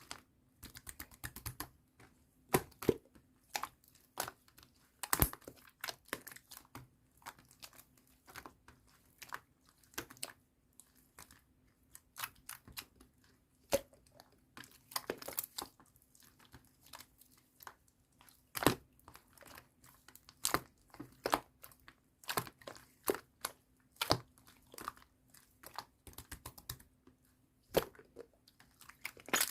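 Soft slime mixed with clay being pressed, poked and stretched by hand, giving irregular sticky clicks, pops and crackles, some much louder than others.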